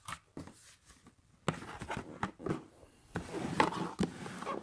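Cardboard box being opened by hand: locking tabs pulled out of their slots and the lid flaps folded back. First a few sharp clicks, then two stretches of cardboard scraping and rustling.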